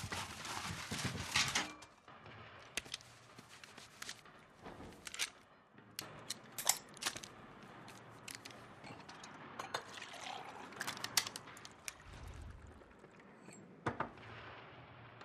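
Close handling sounds. For the first two seconds, paper rustles and crumples as hands rummage in a metal wastebasket. After that come scattered light clicks and knocks of glassware being handled on a tray, with a liquid being poured.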